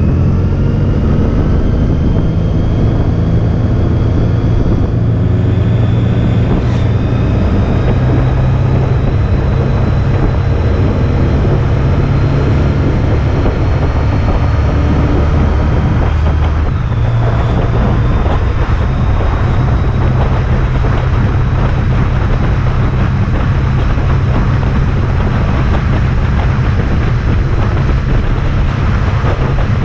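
Honda ST1300 Pan European's V4 engine running under way, its note rising as it accelerates in the first seconds and changing about halfway through, with heavy wind rush on the action camera's microphone.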